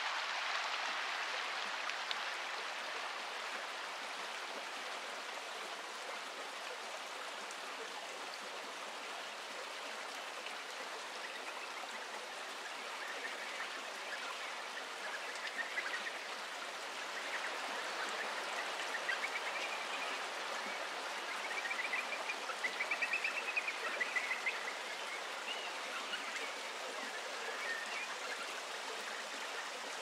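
Steady rushing of a forest river or stream. In the second half a bird calls over it in short whistled phrases and trills, loudest about two thirds of the way through.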